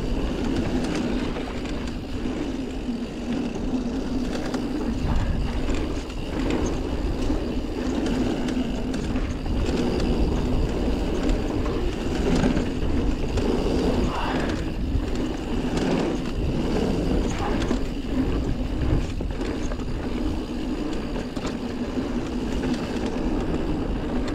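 Commencal Meta TR full-suspension mountain bike rolling fast down a dirt forest trail: steady rumble of the tyres on the dirt, with scattered knocks and rattles as the bike goes over bumps.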